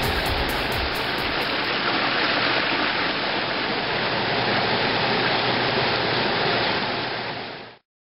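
Water pouring down a landscape rock waterfall and splashing over boulders, a steady rushing that fades out near the end.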